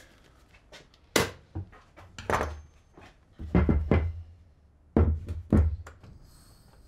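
Handling noise: a series of sharp knocks and clunks, about five spread over several seconds, as air-hose fittings are handled and the camera is bumped.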